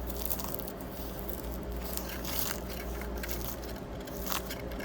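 Crisp baked puff pastry crackling and crunching in a string of small, irregular snaps as it is handled, over a steady low electrical hum.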